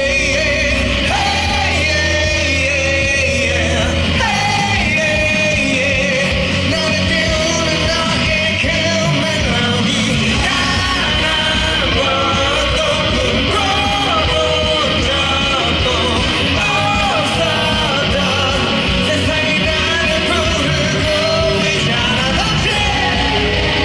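A male vocalist singing live over loud, continuous instrumental accompaniment.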